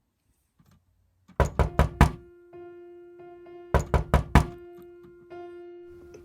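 Knocking on a door: four quick knocks, then four more about two seconds later. A single steady musical note is held under the second set.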